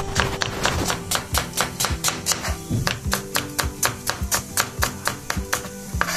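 Chef's knife slicing red onions on a cutting board: rapid, even strokes, about six a second, each a sharp tap of the blade on the board, over background music.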